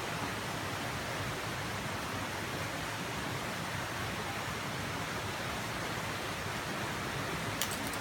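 Steady rushing noise with no distinct events, and a single short click near the end.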